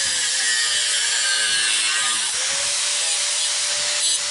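A power tool cutting through the 5160 spring-steel blade blank to trim off the excess tang: a steady hissing grind over a motor whine that fades under load and comes back a little over two seconds in.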